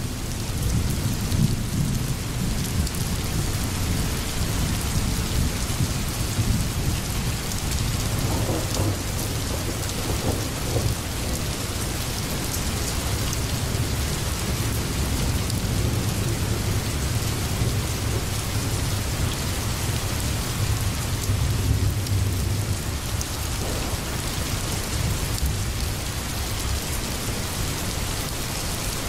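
Steady rain with low rumbling thunder, the rumble swelling and fading through the middle.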